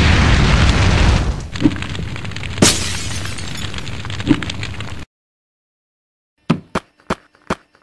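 Cartoon explosion sound effect: a loud blast and a rushing, crackling fire roar with a few thuds inside it, cut off suddenly about five seconds in. After a short silence come a handful of short sharp clicks.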